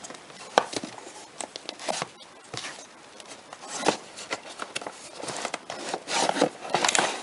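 Plastic DVD cases being handled on a shelf: scattered clicks and short rubbing, sliding sounds, busier near the end.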